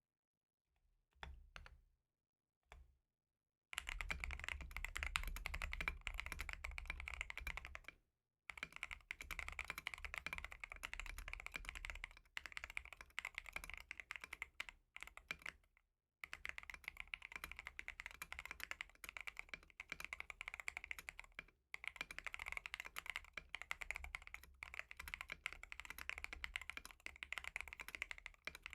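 Typing on a mechanical keyboard fitted with Milk and Honey dye-sub keycaps. A few separate key presses come first, then fast continuous typing in long runs with a few short pauses.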